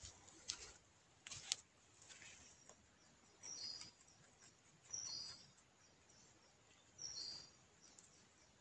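A bird calling faintly in the background: a short, high two-note call, the second note a little lower, repeated three times about a second and a half to two seconds apart. A few soft clicks and rustles in the first second and a half.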